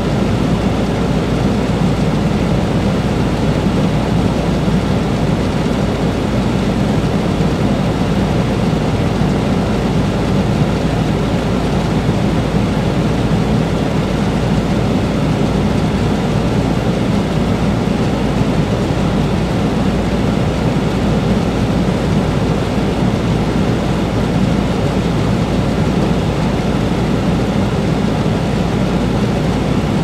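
Air conditioner running steadily: an even low rumble with a fainter rushing hiss of airflow above it, unchanging throughout.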